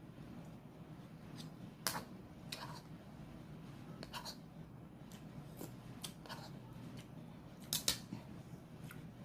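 Close-miked eating sounds: chewing, heard as a string of short, sharp, crisp clicks, the loudest about two seconds in and near the end.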